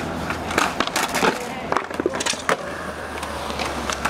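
Skateboard wheels rolling on pavement with a steady low rumble, broken by a run of sharp clacks and knocks from the board.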